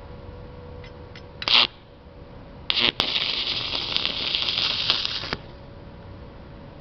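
Stick-welding arc from an 80-amp DC-electrode-positive inverter welder with a 308L stainless rod, tacking stainless steel plates. It strikes briefly twice, about a second and a half in and again just before three seconds, then holds a crackling arc for about two seconds before cutting off suddenly.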